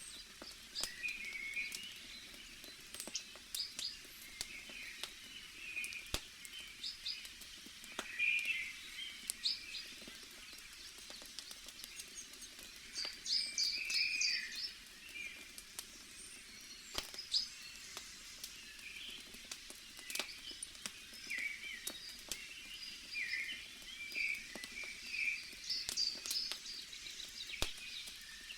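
Wood fire crackling with scattered sharp pops, while small birds chirp repeatedly, the chirps being the loudest sounds.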